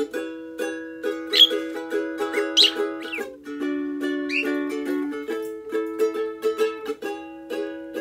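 Ukulele strummed in a steady rhythm, with a pet parrot's short high chirps over it several times in the first half.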